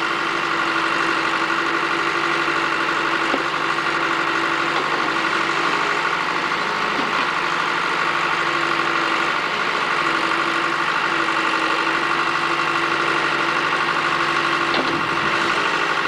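Backhoe loader's engine running steadily with an even, unchanging pitch.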